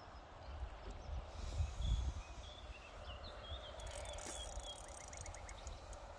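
Lakeside outdoor ambience: small birds chirping, with a quick trill of about five notes near the end, over a low rumble on the microphone that swells twice early on.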